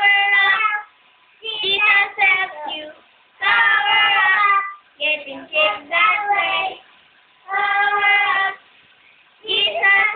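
A two-year-old girl singing in a high voice, in short phrases with pauses between them: long held notes alternate with quicker runs of syllables.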